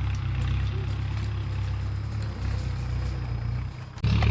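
A vehicle engine running steadily with a low rumble, which cuts off abruptly about four seconds in.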